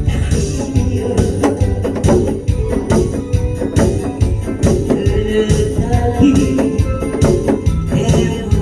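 Lively band music with an organ-like keyboard over a steady, quick beat.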